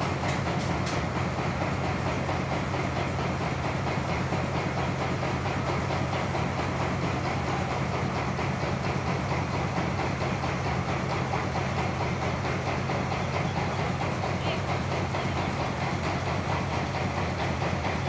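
Tong Yang band sawmill running steadily: a constant motor hum under an even, rattling mechanical whir.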